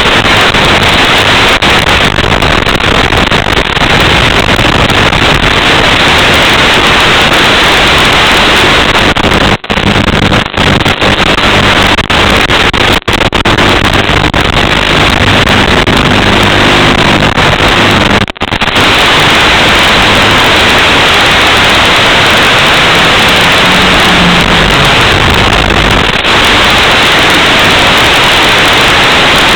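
Micro FPV drone's motors and propellers buzzing under loud hiss, with their pitch shifting as the throttle changes. The sound cuts out briefly about four times.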